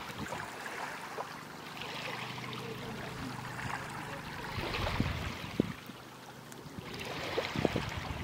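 Small waves lapping at the edge of a shallow sandy beach, rising and easing in soft surges, with a few short wind bumps on the microphone.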